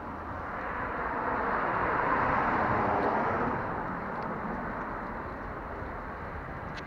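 A vehicle passing by on the street: a swell of road and tyre noise that peaks about two to three seconds in and then fades.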